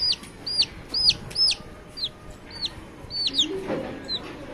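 Baby chicks peeping: a quick string of high-pitched chirps, each rising and then falling, about two to three a second, with a lower hen cluck near the end.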